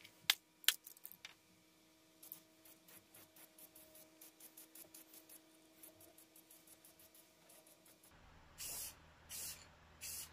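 A run of light, even clicks, about three a second, then three short hissing bursts from an aerosol spray paint can near the end.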